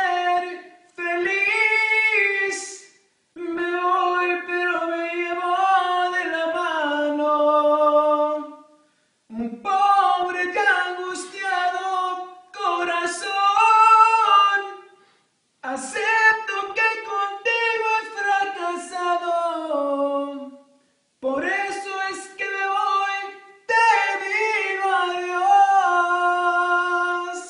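A man singing unaccompanied in a high voice, drawing out long held notes that bend in pitch, in about seven phrases of a few seconds each with short breaks between them.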